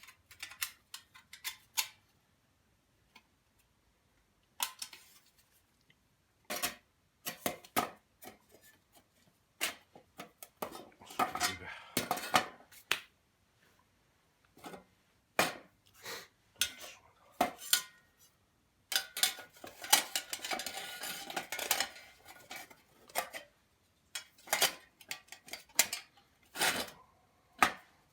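Metal clinking and knocking from a small frying pan and metal utensils being handled, with two longer stretches of scraping.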